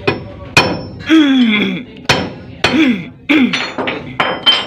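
Hammer blows on a long steel bar used as a drift to drive a new bearing into a crane's radiator water pump housing: about eight sharp metal strikes, irregularly spaced. A few short falling tones come between some of the blows.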